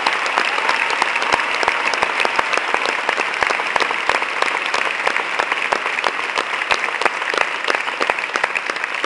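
A large theatre crowd applauding steadily, a dense mass of clapping with individual close claps standing out sharply.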